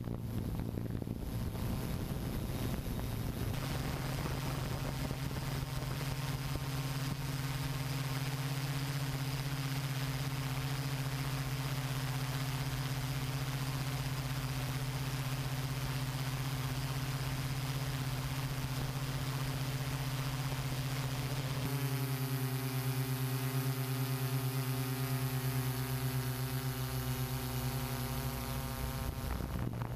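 Hexacopter drone's electric motors and propellers humming steadily, heard from on board. About two-thirds of the way in, the hum abruptly changes to a denser set of even, steady tones.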